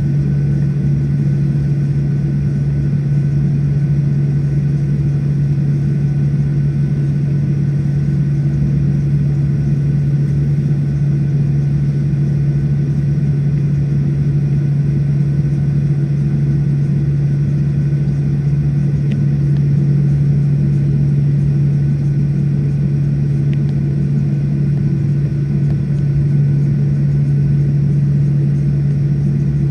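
Steady cabin drone of a jet airliner on the ground, its engines at idle, with a strong low hum and a faint higher tone, unchanging throughout.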